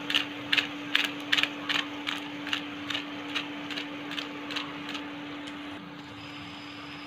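A regular mechanical ticking, about two to three sharp ticks a second, which stops about five seconds in, over a steady low hum.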